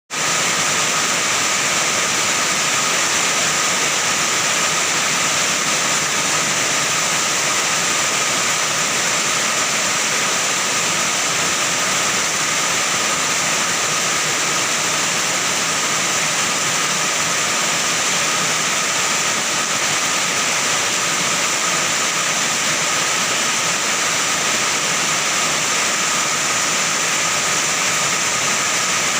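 Heavy rain pouring steadily onto an iron roof, a dense, even hiss.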